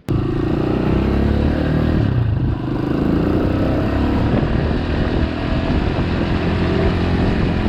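Hawk 250 (TT250) Chinese enduro dirt bike's single-cylinder four-stroke engine running steadily, now that a cleaned carburetor and fresh fuel have brought it back from a no-start.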